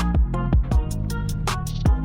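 Electronic background music with a steady beat and deep bass notes that slide down in pitch.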